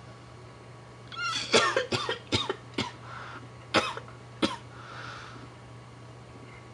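A man coughing into the T-shirt held over his mouth and nose: a short strained vocal sound, then about six sharp coughs over some three seconds.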